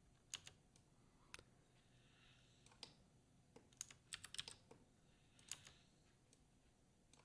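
Faint, scattered clicks of a computer keyboard and mouse: single keystrokes a second or so apart, with a quick run of several around four seconds in.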